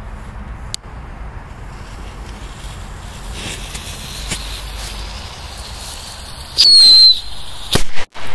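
Whistling firecrackers going off: about six and a half seconds in, a loud high whistle that falls slightly in pitch, followed near the end by two sharp firecracker bangs.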